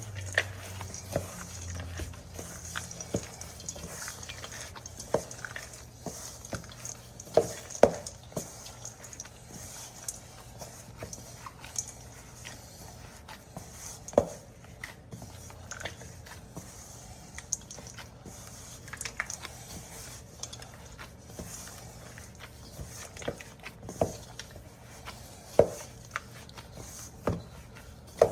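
Hands kneading soft cookie dough with crushed almonds, pistachios and walnuts mixed in: soft squishing broken by irregular sharp clicks and taps.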